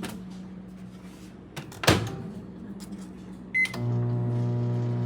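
Microwave oven door shut with a sharp thump about two seconds in, a short keypad beep, then the microwave starting up and running with a loud, steady hum.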